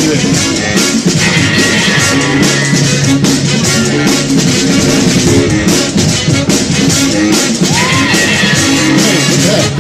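Loud music with a steady drum beat played over a PA sound system.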